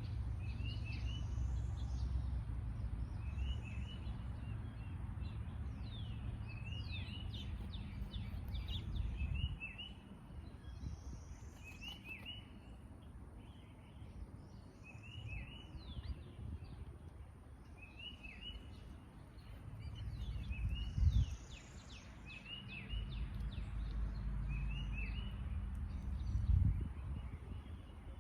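Several small birds chirping and calling in short, repeated phrases, over a steady low rumble that fades for a while in the middle and comes back. Two brief low thumps come near the end.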